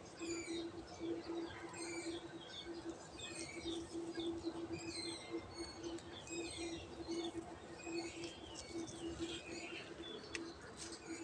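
Many small birds chirping in quick, overlapping calls, over a steady low hum that pulses a few times a second.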